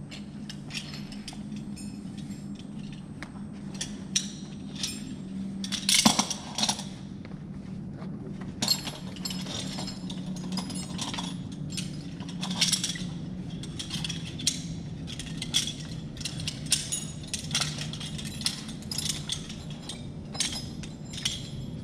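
Metal harness and rope-access hardware, carabiners and buckles, clinking and clicking again and again as the gear is handled, loudest about six seconds in, over a steady low hum.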